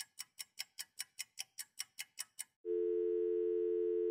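Sharp ticking at about five clicks a second, cleanly separated by silence. About two and a half seconds in it gives way to a steady telephone dial tone, two low tones sounding together.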